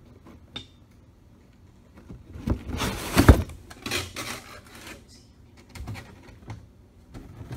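Cardboard boxes being handled: a few seconds of cardboard scraping and rustling in the middle, with one loud thump as a box is set down or knocked, then a few light knocks.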